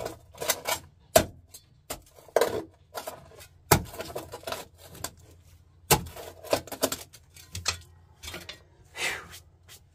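Small army shovel chopping into rocky dirt: irregular sharp clinks of the steel blade striking rocks, about one or two a second, with scraping of soil between, stopping near the end.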